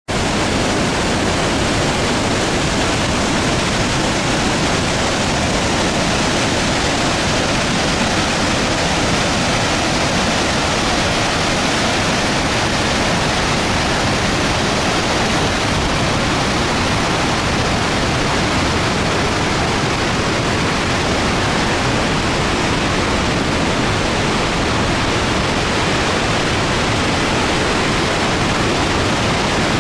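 Augrabies Falls on the Orange River in high flow, about 2800 cubic metres a second, a loud, steady rush of falling water with no let-up.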